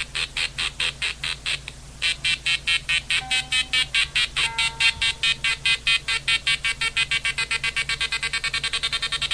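Guitar played through a home-built 555-timer modifier effect, giving a buzzy, square-wave fuzz tone chopped on and off by a second 555 wired as an LFO. The pulses start at about three or four a second and speed up to about seven a second as a knob on the breadboard is turned.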